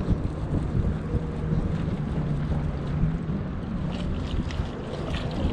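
A boat's motor running steadily with a low, even hum, with wind buffeting the microphone; a few light clicks come near the end.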